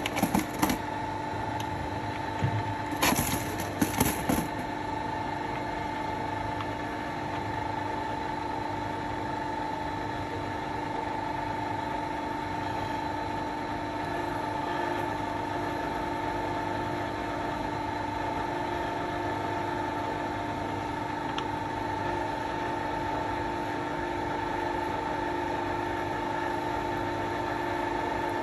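Metal lathe running steadily with a constant hum and whine from its drive while a spiral-flute reamer is fed into a hole in a steel block. A few sharp plastic clatters and knocks come in the first four or so seconds, as a clear plastic tray is set under the work to catch the chips.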